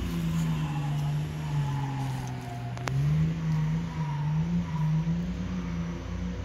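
Nissan Patrol GR's engine running under load off-road. The note sags, then revs up about three seconds in and holds with small rises and falls. A single sharp click comes near the same moment.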